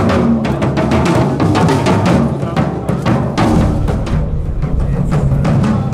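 Live drum duo playing tom-toms and large drums with sticks and mallets: a fast, dense run of strokes with pitched low drum notes.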